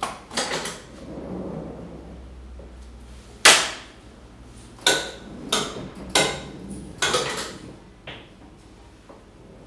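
X-ray tube head and its support arm being moved into position by hand: a string of sharp metallic clunks and clicks, about six in all, the loudest about three and a half seconds in.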